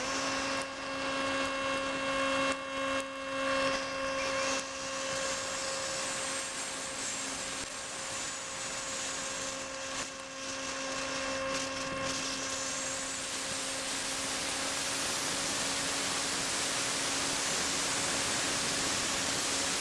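Motor and propeller of a model aircraft heard from its onboard camera as a steady hum, under a rushing hiss of wind and rain on the wet microphone. The hiss grows louder about halfway through and buries the hum.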